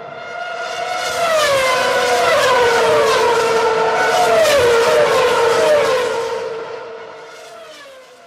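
Race-car engine sound effect revving in repeated throttle blips, each rising in pitch and gliding back down. It swells in over the first second and fades away near the end.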